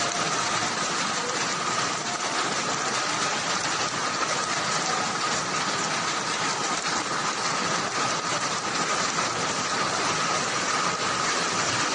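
Fast-flowing floodwater rushing by, a steady even noise with a faint steady whine running through it.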